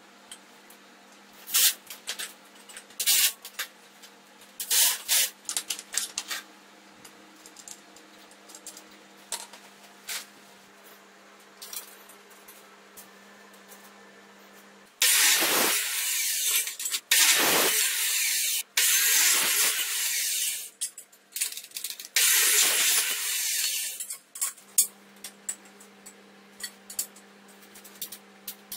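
Workshop handling sounds: scattered clicks and knocks of metal parts and tools. In the middle come four runs of loud, harsh hissing and scraping noise, each one to three seconds long.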